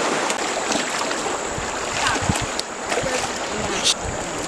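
Water sloshing and splashing, with a sharper splash about four seconds in.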